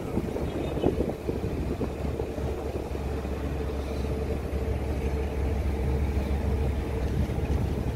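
Ship's engine running steadily while underway, heard from on board: an even low drone with a steady hum held above it.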